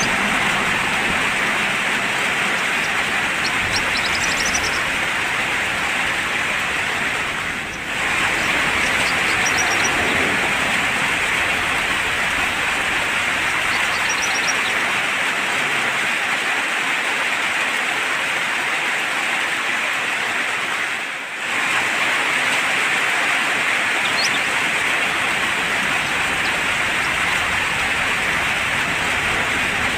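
Steady rain falling, a constant even hiss that dips briefly twice. A few faint bird chirps come through in the first half.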